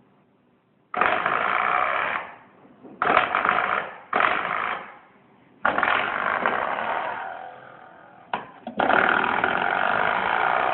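A young child making a funny buzzing noise with her voice and mouth, in about six bursts of one to three seconds each, with short pauses between them and the last burst the longest.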